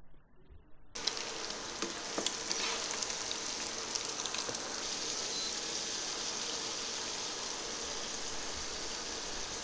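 Halved boiled eggs and fried onion–chilli paste sizzling in hot oil in a wok, a steady hiss that starts suddenly about a second in, with a few light clicks early on.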